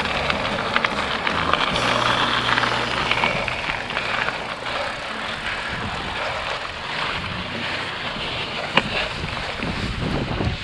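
Merida mountain bike being ridden: steady tyre and wind noise on the microphone, with frequent small rattles and clicks and one sharper click near the end.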